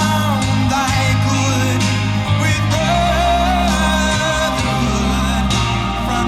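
A song playing, with a singing voice over a steady bass line and backing instruments.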